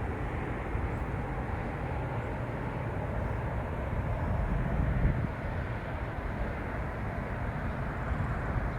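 Steady low outdoor rumble and hiss, with no distinct events, swelling briefly about five seconds in.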